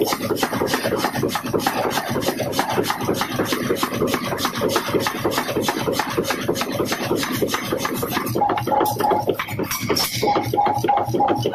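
Power forging hammer striking a glowing steel billet in rapid, even blows, about six to seven a second.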